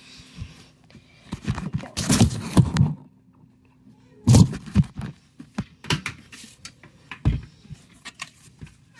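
Phone handled and carried about: rustling and knocking noise in irregular bursts, with a sharp dull thump about seven seconds in.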